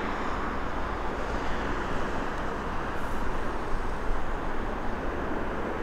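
Steady outdoor rumble: an even wash of distant noise with no distinct events.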